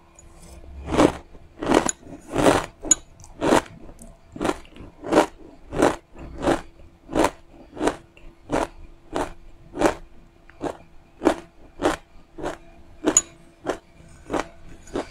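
Close-up crunchy chewing of dry toasted rice grains (chao mi), a steady rhythm of crisp crunches about one and a half a second.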